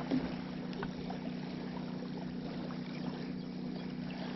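Small waves lapping a sandy lakeshore over a steady low hum, with a few faint clicks from handling.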